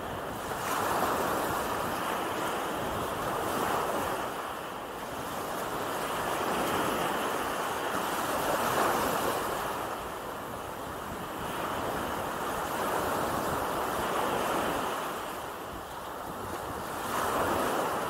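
Gentle surf: small waves breaking and washing up a sandy beach, the hiss of the wash swelling and fading every few seconds.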